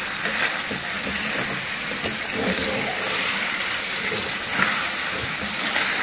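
Chicken pieces sizzling in hot oil in a steel kadhai, with a steel spoon scraping and knocking against the pan as they are stirred.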